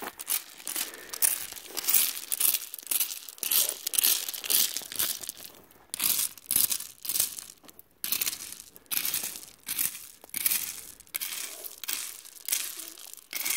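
Small three-tined metal hand rake scraping and raking through a pile of gravel, the stones grating and clattering in irregular strokes about one or two a second, with short lulls about six and eight seconds in.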